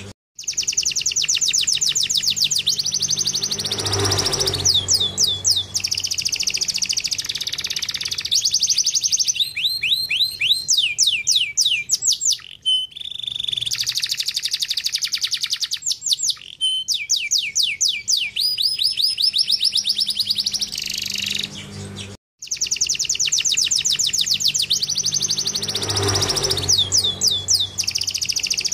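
Domestic canary singing: a long song of fast trills and rolls, each phrase a rapid run of repeated high notes, some sliding down in pitch. The sound cuts out briefly twice, once near the start and once about 22 seconds in, and the song picks up again.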